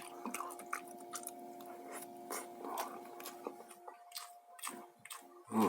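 Close-up mouth sounds of someone chewing fried white tofu: a string of small wet clicks and smacks over a faint steady hum. A louder short mouth sound comes near the end.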